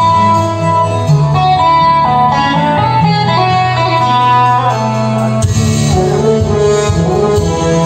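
Background music with sustained melody notes over a steady bass; the arrangement gets fuller about five and a half seconds in.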